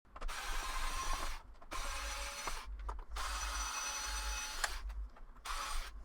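Small electric screwdriver whirring in several short runs with brief pauses between them, backing out the screws that hold a PS5's fan shroud.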